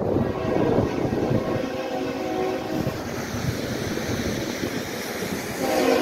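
Multi-chime air horn of a BNSF freight locomotive sounding a chord: one blast about a second and a half in that lasts over a second, then another starting near the end.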